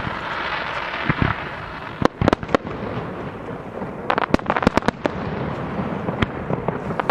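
Aerial fireworks bursting over water, with sharp bangs: a few spaced reports about two seconds in, then a quick run of crackling reports about four seconds in, and a single bang near six seconds.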